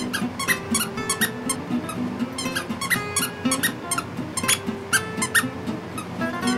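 A squeaky plush toy being chewed by a small dog, giving short, high squeaks several times a second in an irregular rhythm, over background music.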